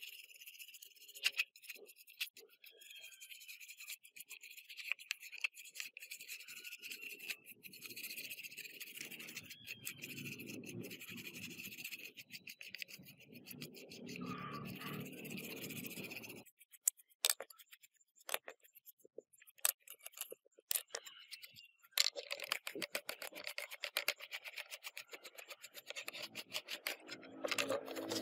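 Steady rubbing or scrubbing on a hard surface for roughly the first half, followed by a run of sharp clicks and taps, then more rubbing with clicks near the end.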